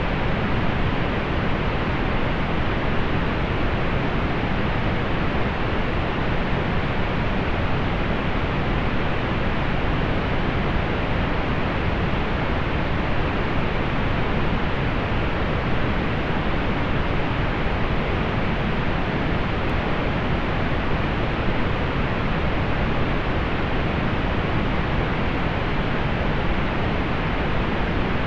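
Steady synthetic pink noise, an even hiss with most of its weight in the low and middle range and little above about 4 kHz, unchanging throughout.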